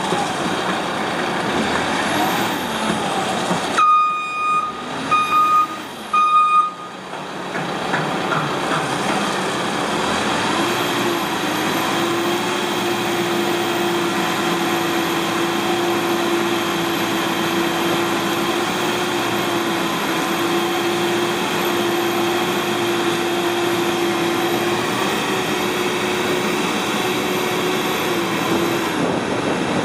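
Caterpillar TL1055C telehandler's diesel engine running, with its reversing alarm beeping three times a few seconds in. About ten seconds in, a steady drone rises over the engine and holds until near the end.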